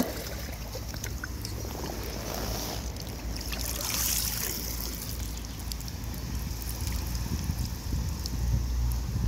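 Water from a radio-controlled boat's wake lapping and splashing against the pond's brick edge, over a steady low wind rumble on the microphone.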